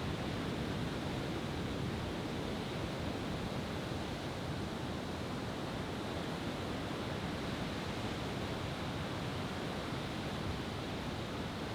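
Steady wash of surf on a beach, with no fireworks bursts.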